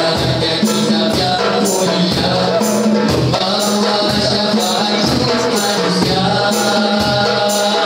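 Live nasyid performance: a group of boys singing together over a steady hand-drum beat, with a jingling tambourine-like stroke repeating in time.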